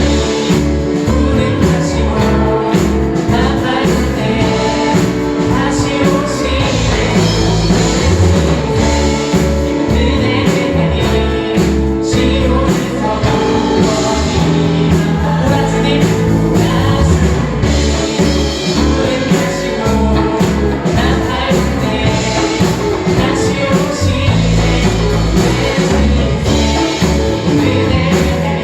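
Church praise team singing a worship song, backed by a band with a steady beat.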